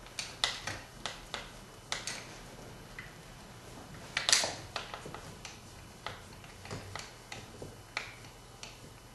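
Irregular clicks and ticks of a screw being driven by hand with a magnetic screwdriver into a venetian blind extension bracket, with one louder knock about four seconds in.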